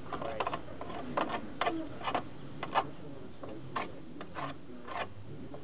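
Irregular scratching and scraping, about a dozen short strokes, as caked dead grass is pried and pulled from the plastic underside of a lawnmower.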